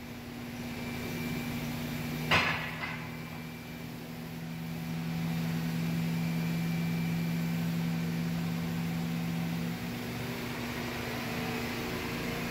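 A Chevrolet Silverado 5.3 L V8 is running steadily at about 2,500 rpm with no load, heard from inside the cab as an even drone. There is a single knock about two seconds in. Near the end the lower part of the drone drops away.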